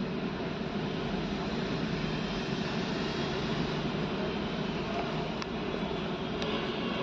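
Steady hum of a car's engine and road noise heard from inside the cabin while the car crawls along in city traffic.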